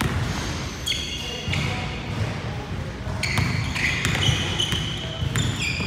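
Basketball game on a hardwood gym court: a basketball being dribbled with repeated thumps, and sneakers squeaking on the floor in several short, high squeals, most of them in the second half.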